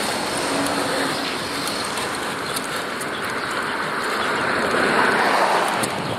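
Steady rush of traffic and wind noise heard while cycling along a busy street, growing louder about five seconds in and easing off near the end.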